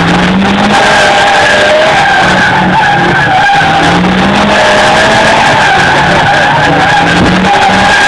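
Car drifting: its tyres squeal steadily and loudly while the engine is held at high revs, its pitch climbing several times as the driver works the throttle.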